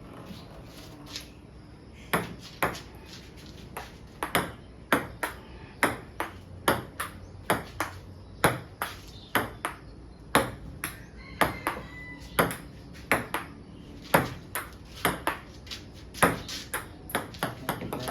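Ping pong ball clicking back and forth off paddles and the table in a long rally, about two hits a second, starting about two seconds in.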